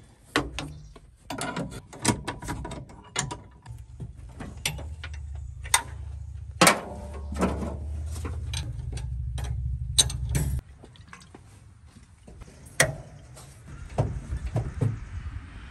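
Scattered clicks and knocks of hand work on a brake master cylinder and its bench-bleed lines, with a low steady hum under the middle part that cuts off suddenly about ten seconds in.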